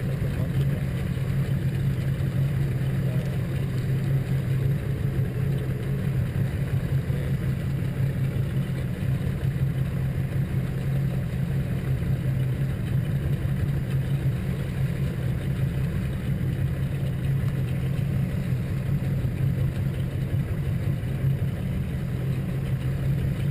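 Motorboat's engine running steadily while the boat is underway, heard from on board: a constant low drone that holds the same pitch and level throughout.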